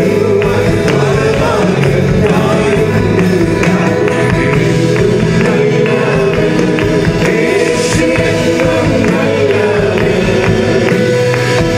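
Malayalam worship song sung by a group of male and female singers on microphones, accompanied by acoustic guitar and keyboard. Steady and loud, without a break.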